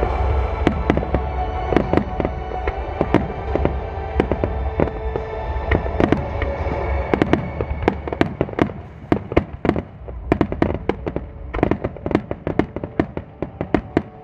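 A daytime star mine fireworks barrage: shells bursting in rapid, irregular sharp bangs, several a second, which come thicker in the second half. Music plays underneath and fades out about halfway through.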